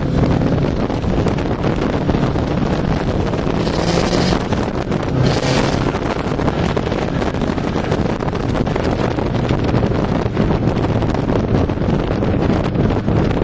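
Heavy wind buffeting on a microphone held out of a fast-moving car's window, over the car's engine and road noise. Two short rushes of high hiss come about four and five and a half seconds in.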